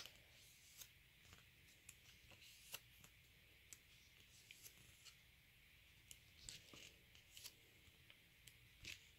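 Faint paper rustling with irregular soft flicks as the pages of a thin album photo book are turned one by one.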